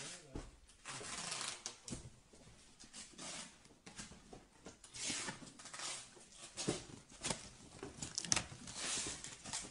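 Label stickers peeled off their backing sheets, with paper and cardboard boxes handled: a run of short, scratchy rasps and rustles, with a sharper click a little over eight seconds in.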